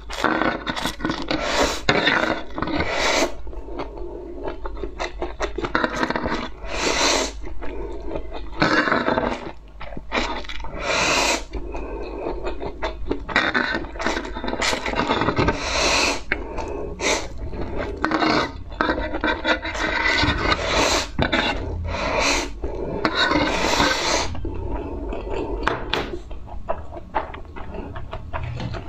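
Close-up eating sounds of a mouthful of noodles: repeated wet slurps every few seconds between chewing and mouth noises.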